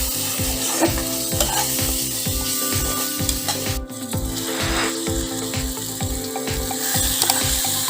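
Food sizzling as it fries in a pan, over background music with a steady low beat.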